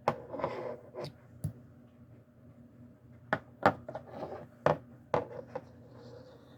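Old Camillus-made Camco scout pocket knife: its blades and tools being opened and snapped shut, about eight sharp clicks with handling rustle between them. The crisp snaps show the backsprings still have firm tension.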